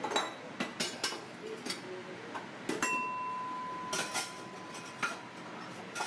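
Kitchen clatter: scattered clinks and knocks of metal pots and utensils. One clink about halfway through leaves a ringing metal note that lasts about two seconds.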